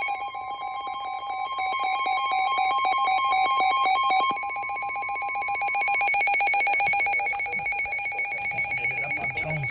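NOAA Weather Radio alert tones: a steady warning tone with a rapidly pulsing, ringing electronic alarm. The steady tone stops about six seconds in while the pulsing alarm continues. The tones announce an incoming severe thunderstorm warning.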